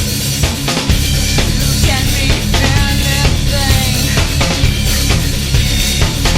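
Nu-metal band playing an instrumental passage: a drum kit beating steadily under bass and guitars.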